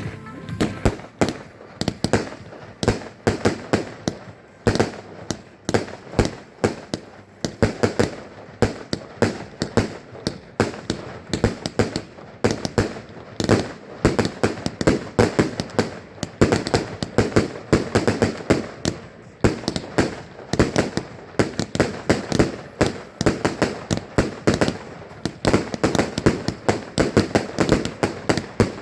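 Fireworks display: a dense barrage of sharp bangs and pops, several a second, with the louder reports standing out over a continuous crackle.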